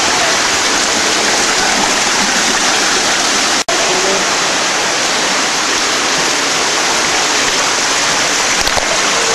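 Steady rushing of an underground stream flowing through the cave. It cuts out for an instant a little over three and a half seconds in.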